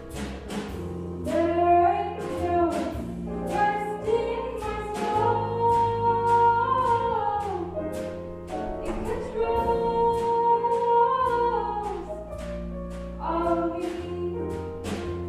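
Small jazz band (piano, trumpet, tenor and alto saxophones, drums, bass) playing a slow jazz-blues tune. The drums keep time at about three strokes a second under a walking low bass and long held melody notes that bend and slide.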